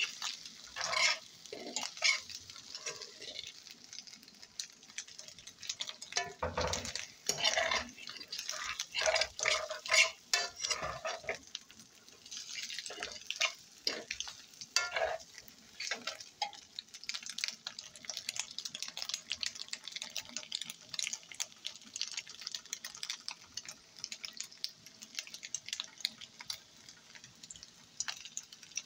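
A metal fork stirring and scraping scrambled eggs and onion around a frying pan, in irregular strokes and clicks over a light sizzle; the strokes are heaviest in the first half and turn lighter and more ticking later.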